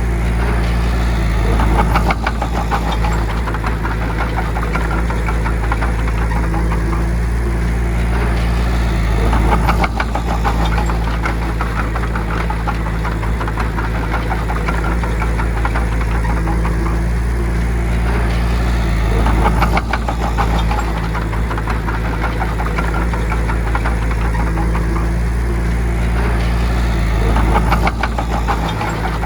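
Bulldozer's diesel engine running steadily, swelling louder with a burst of clatter about every eight to nine seconds, four times.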